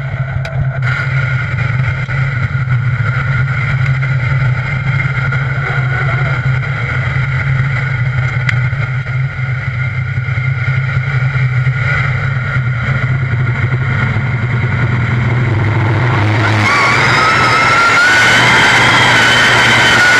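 Modified pulling tractor's big multi-cylinder engine idling with a steady low tone at the start line, then about sixteen seconds in revving up and pulling away, louder, with a rising whine. A few sharp clicks near the start.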